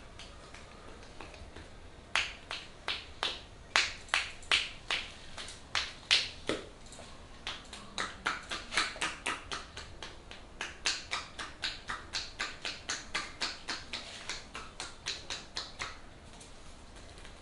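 Percussive hand massage (tapotement) on a forearm: sharp slapping clicks of the hands striking the skin. They start about two seconds in, irregular at first, then settle into a steady run of three or four a second and stop shortly before the end.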